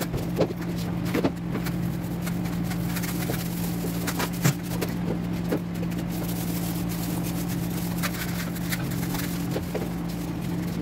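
A steady low hum runs under scattered scrapes and light knocks from old paint being scraped off a wall.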